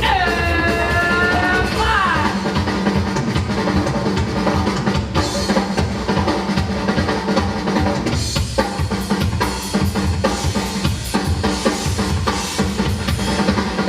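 Dance track played loud, with a heavy drum-kit beat of kick and snare; a falling pitched sweep opens the first two seconds.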